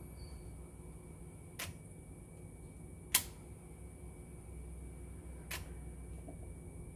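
Three separate clicks from a TEAC V-2RX cassette deck's front-panel transport buttons being pressed, the second the loudest. A steady low hum and faint hiss run underneath.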